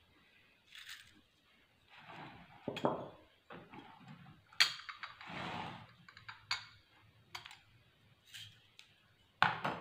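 Ingredients being handled and dropped into a stainless steel pot of water: scattered soft rustles of leaves and herbs, with a few sharp clicks and taps against the pot.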